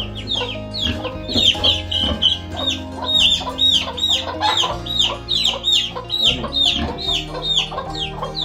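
Baby chicks peeping loudly and continuously, about three sharp calls a second, each falling in pitch, as they are handled and taken from their mother.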